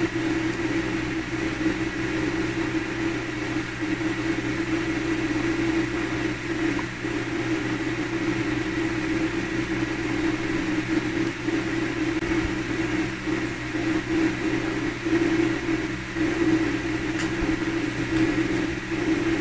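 A steady mechanical hum, as of a small motor running.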